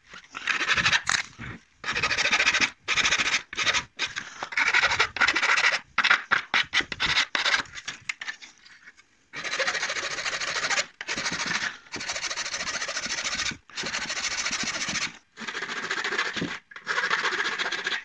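Hand file rasping back and forth across a plastic-welded grille mounting tab, neatening the repair. Quick short strokes come first, then slower, longer strokes of about a second to a second and a half each.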